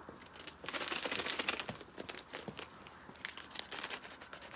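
Plastic food packet crinkling as it is picked up and handled: a dense rustle for about a second, then scattered crackles.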